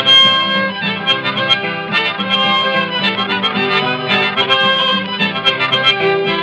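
Instrumental break of an old-time 1920s record: a harmonica plays held, reedy melody notes over a strummed acoustic guitar, with the narrow, dull sound of an old 78 transfer.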